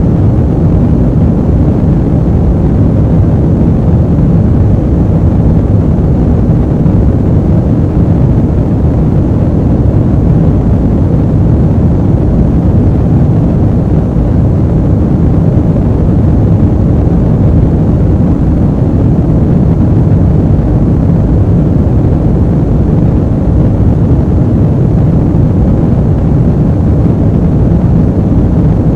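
Airplane ambient noise: a steady, even low rumble that does not change, with little high-frequency content.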